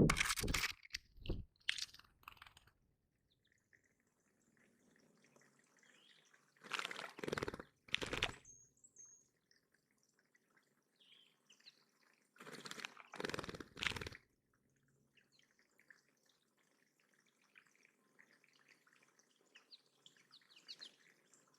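A bird bathing in a shallow bird pond, splashing water in three short bouts about six seconds apart. Faint birdsong sounds between the splashes.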